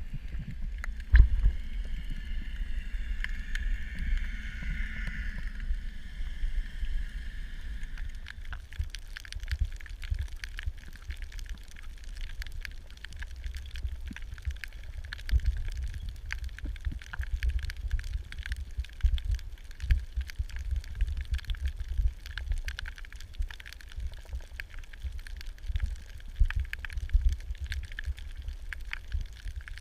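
Underwater sound picked up through a camera housing: a steady low rumble with many small clicks and crackles, and a brief hiss a couple of seconds in.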